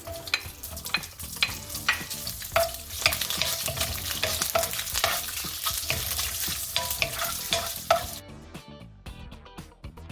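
Sliced sausage sizzling in hot olive oil on high heat, with sharp knocks of a utensil as it is stirred and turned in the pan. The sizzle cuts off abruptly about eight seconds in.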